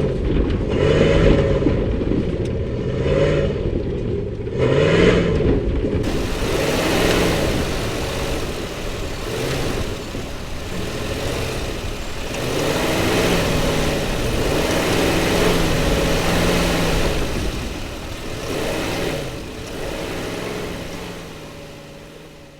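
Chevrolet Silverado pickup's V8 engine revving up and down repeatedly, its pitch rising and falling with each rev. The sound fades out near the end.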